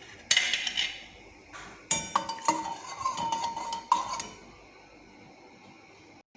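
Metal cookware and utensils clattering: a loud clatter, then a second one that leaves a ringing note for about two seconds, and a last knock about four seconds in, after which only a faint steady background remains.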